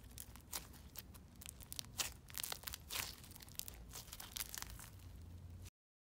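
Floam slime packed with foam beads crunching and popping as it is squeezed and kneaded by hand: a rapid, irregular run of sharp crackles that cuts off suddenly near the end.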